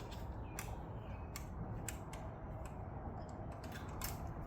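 Irregular light clicks and taps from an air hose quick-connect fitting being worked loose, over a low steady rumble.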